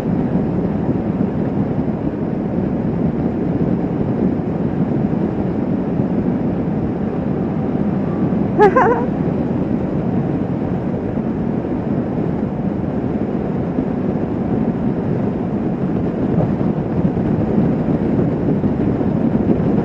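Kawasaki Vulcan S 650 motorcycle running at highway speed, heard as a steady, heavy rush of wind and road rumble. A brief pitched blip comes about nine seconds in.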